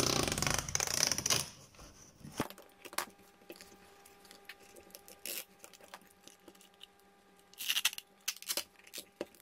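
Plastic case of a power adapter being handled and its halves pressed shut: scraping and rubbing for the first second or so, then scattered small clicks and knocks of the plastic shell.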